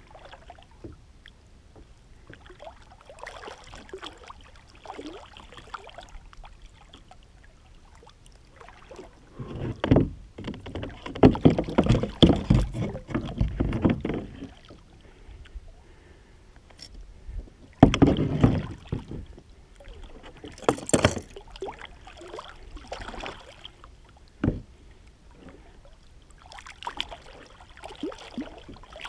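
Water splashing and sloshing against a kayak, with a louder stretch of splashing about a third of the way in and another shortly after, and a single sharp knock later on.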